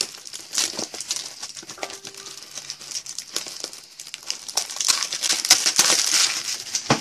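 Plastic wrapping on a pack of toploader card holders crinkling and crackling as it is worked open by hand, with sharp clicks throughout and the loudest crinkling about five to six and a half seconds in.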